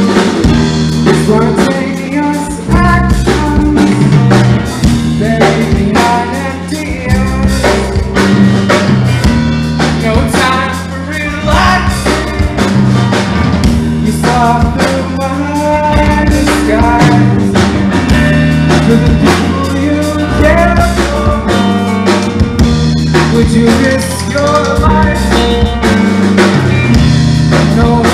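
Live rock band playing loudly: electric guitar, electric bass and drum kit together, with steady bass notes under the drum beat and gliding melodic lines above.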